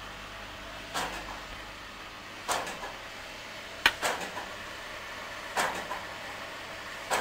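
Rebuilt Colossus code-breaking computer running: a steady machine hum with a sharp click about every second and a half.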